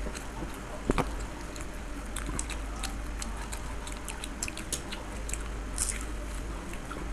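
Close-up eating sounds of fuchka (pani puri) and chowmein eaten by hand: chewing and biting with many small wet clicks, and one sharp crack about a second in.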